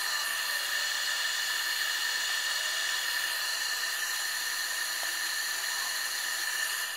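Wood lathe running steadily, a constant motor whine with hiss.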